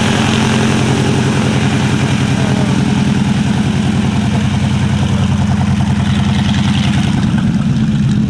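Nine-cylinder Pratt & Whitney R-1340 Wasp radial engine of a North American T-6 Texan (Navy SNJ) running steadily at taxi power, with a fast, even firing beat, as the aircraft taxis and turns.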